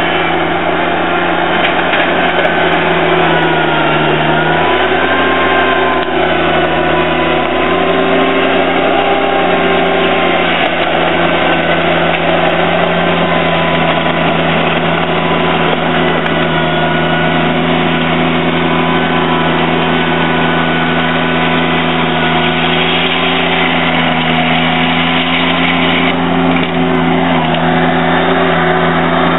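John Deere 322 garden tractor's engine running steadily as the tractor pushes gravel with its front blade, the engine note dipping briefly a few seconds in.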